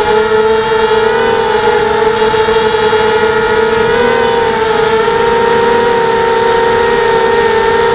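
SunnySky brushless motors and propellers of a Coptergeist CGX 250 racing quadcopter whining steadily in flight, heard close up through the onboard camera. Several motor tones sit close together and shift slightly in pitch about four seconds in as the throttle changes.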